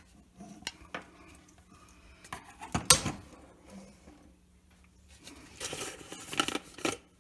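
A plastic jar and tools being handled and set down on a work surface: scattered light clicks, one sharper knock about three seconds in, and a stretch of clattering and rustling near the end.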